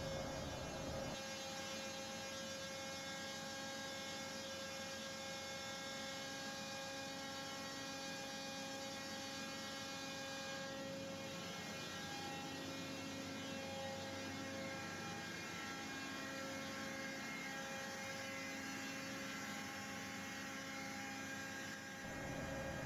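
Steady, faint hum of ship's engine-room machinery with the heavy fuel oil purifier running.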